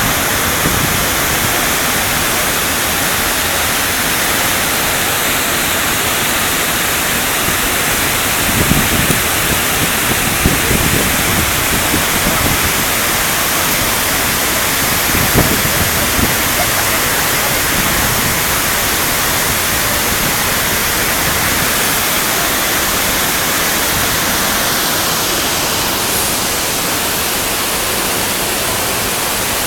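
Misol-Ha waterfall: a steady, loud rush of falling water.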